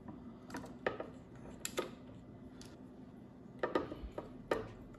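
Short, sharp plastic clicks and taps, about eight spread irregularly, as small wiring-harness connectors are pushed into the ports of a Nucular P24F e-bike motor controller; the snap of a plug latching is the sign that it is fully seated.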